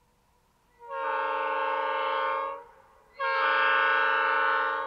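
Locomotive horn on an approaching coal train sounding two long blasts, each a chord of several notes. The second blast starts about half a second after the first ends and is slightly louder.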